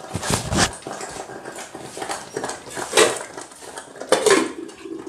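Thick spinach gravy spattering in a pot on the stove, with several sharp pops and splats, and a metal pot lid clattering as it is handled near the end.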